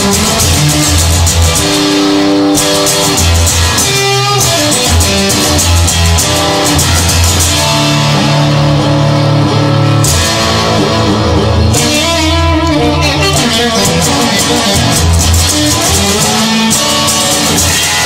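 Rock music with electric guitar over bass guitar and drums, playing steadily without a break.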